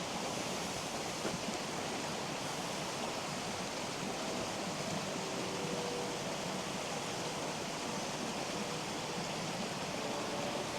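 Steady rushing noise that holds even throughout, with no breaks or distinct events.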